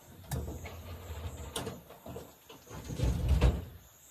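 Hands pulling apart a jackfruit on a wooden table: low knocks and rustling with a few sharp clicks, loudest about three seconds in.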